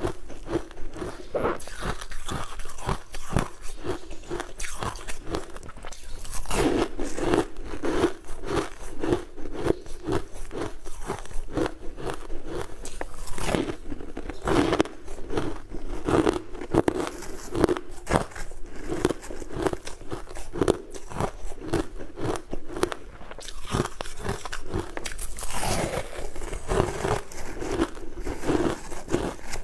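Refrozen ice chunks being bitten and chewed, a steady run of crisp crunches with no pause.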